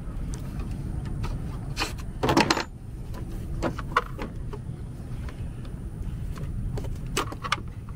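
Hard plastic clicks and rattles as a pickup's headlight assembly is worked loose and pulled out of the front end, with a louder clatter about two and a half seconds in. A steady low rumble lies underneath.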